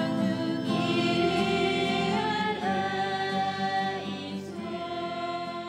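Church congregation singing a hymn together, with an acoustic guitar accompanying; the sung notes are held and change pitch in steps.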